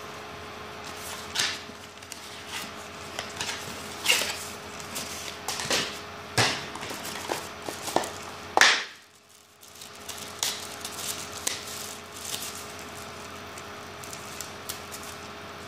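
Handling noise from unpacking a cardboard phone box: the cardboard inner tray and lid scraping and tapping, and the plastic wrap of a cable crinkling, in irregular bursts. The loudest scrape comes just past the middle. A faint steady hum sits underneath.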